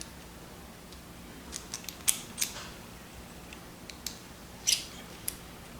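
A handful of small, sharp metal clicks and scrapes, irregularly spaced, from a key being worked in an ASSA Desmo slider lock.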